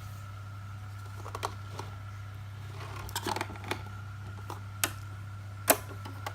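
Cricut Explore Air 2 cutting machine giving irregular sharp clicks and knocks over a steady hum and a steady high tone, the grinding noise the machine is shown for; the loudest knock comes near the end.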